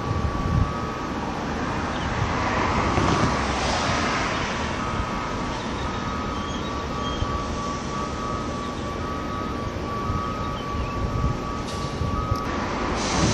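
Steady rumble of dock machinery and trucks, with a reversing alarm beeping at an even pace over a steady high tone; the beeping stops near the end.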